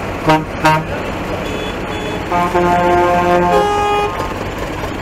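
Vehicle horns tooting: two short toots, then a longer blast with several pitches at once about two seconds in, over the steady running of tractor engines.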